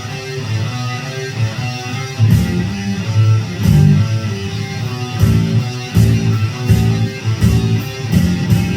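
Guitar music: plucked and strummed guitar notes over low bass notes, played with an uneven beat.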